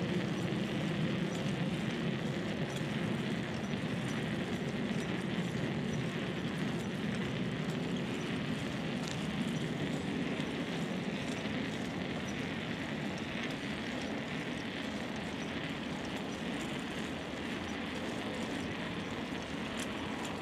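Steady rushing noise of a moving bicycle heard from a chest-mounted camera: wind on the microphone mixed with tyres rolling on the path.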